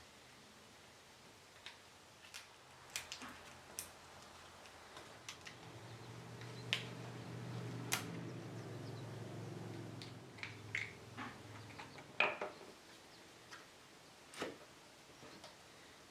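Scattered light clicks and taps of small objects being handled on a workbench, with a low hum rising for a few seconds in the middle.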